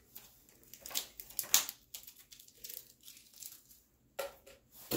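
Clear plastic parts bags of cooler mounting hardware crinkling and rustling as they are handled, in irregular crackles with the loudest about one and a half seconds in.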